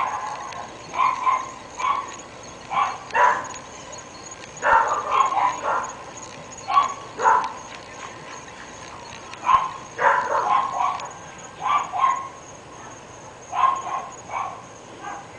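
Dogs barking repeatedly, in short clusters of one to several barks every second or two, with brief pauses between.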